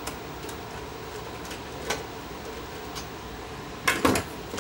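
Clicks and clatter of parts being handled while a VCR circuit board is worked loose from its chassis. There are a few light clicks, then a louder quick run of knocks and clicks near the end.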